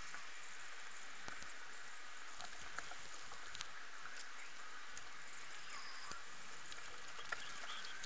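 Steady hiss, with a few faint clicks and ticks.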